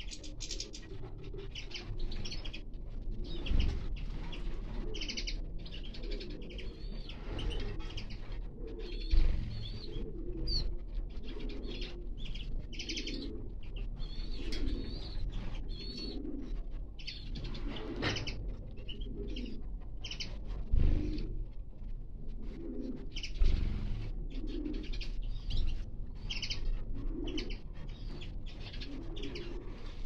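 Small finches chirping and twittering in quick, high calls around a drinker, with a low cooing underneath. A few short soft thumps stand out as the loudest sounds.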